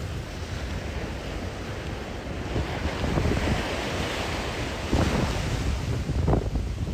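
Strong wind buffeting the microphone over surf washing onto the beach, the surf's hiss swelling about three seconds in.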